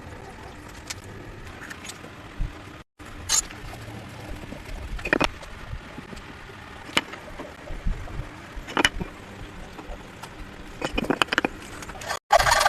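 Scattered light taps and clicks of woodworking hand tools and wooden parts being handled, about one every second or two, over a steady background hiss.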